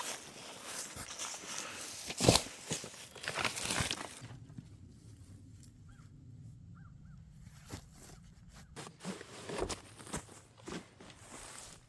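Footsteps and rustling while hiking, with the loudest thump about two seconds in. About four seconds in it turns quieter, with a few faint short chirps and scattered knocks and rustles.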